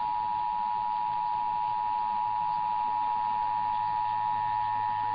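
Emergency Alert System attention signal: two steady tones of 853 and 960 Hz sounding together as one continuous, unbroken tone over the radio. It announces that an emergency alert message, here an AMBER Alert for a child abduction, is about to be read.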